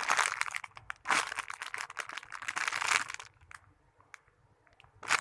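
Crinkling of a squishy toy's plastic packaging being handled, dense and crackly for about three seconds, then mostly stopping apart from a few faint clicks.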